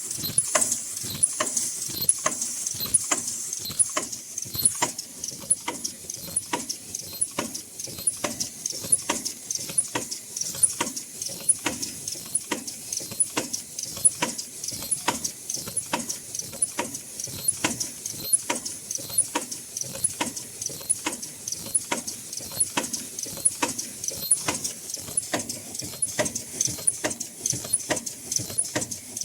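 High-speed automatic N95/FFP mask production machine running, with a rapid, even train of sharp mechanical clicks over a steady high hiss.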